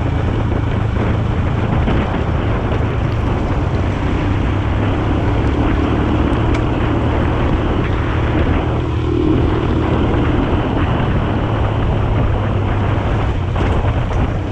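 Royal Enfield Himalayan's single-cylinder engine running steadily as the bike rides along a gravel road, with wind noise on the microphone.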